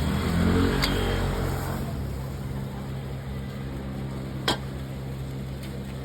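Street traffic: a motor vehicle's engine speeds up in the first second or so, rising in pitch, then settles to a steady low running hum. A single sharp click sounds about four and a half seconds in.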